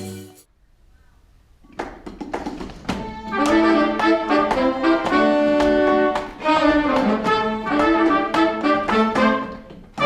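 Pit orchestra playing a musical theatre cue with brass and strings: after a brief hush it comes in with short, punchy chords about two seconds in and builds to a full, steady sound.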